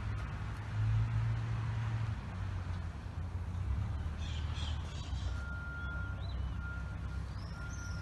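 Heavy diesel machinery running with a steady low rumble. From about five seconds in, a reversing alarm beeps at one pitch roughly once a second, and birds chirp above it.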